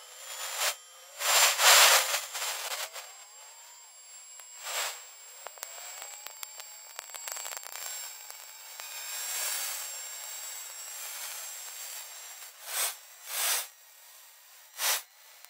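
Infrasound recording from a high-altitude balloon's microphones, shifted up so it can be heard: a series of hissing whooshes that swell and fade, the loudest about one and a half to two seconds in and several short ones near the end, over faint thin whistling tones. NASA puts the sounds down to air turbulence.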